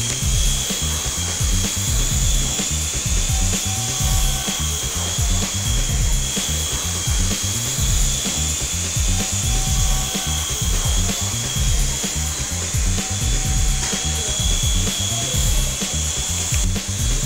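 Background music with a steady pulsing bass beat, with a high, steady whine above it.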